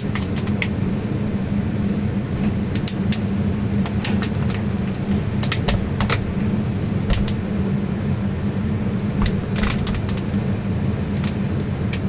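Steady low hum of a running cold-room refrigeration unit, with scattered light clicks and knocks from handling at the unit during leak checking.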